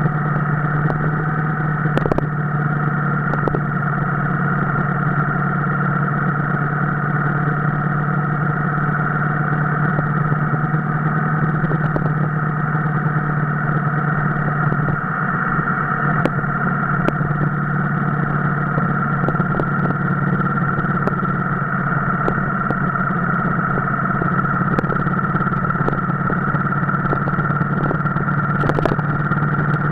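Motorcycle engine running at a steady cruising speed, its note holding even with no rise or fall in pitch.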